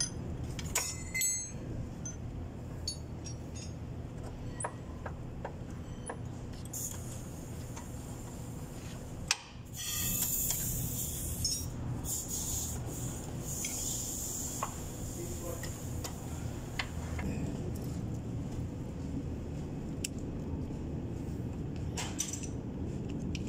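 Scattered small metallic clicks and scrapes of hand tools, a screwdriver and a ratchet, working on a truck's disc brake caliper and pads, over a steady low hum.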